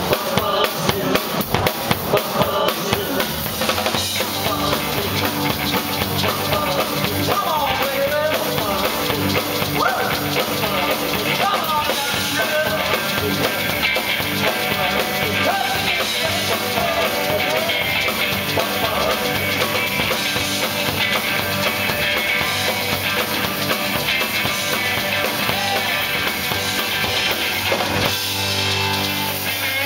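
Live rock and roll band playing an instrumental passage with no singing: drum kit and electric guitar, with a maraca shaken along.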